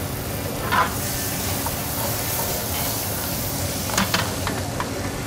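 Diced onions and bell peppers sizzling in hot pan drippings in a stainless steel skillet, a steady hiss. There are a few short clinks as a spoon stirs them, about a second in and again around four seconds.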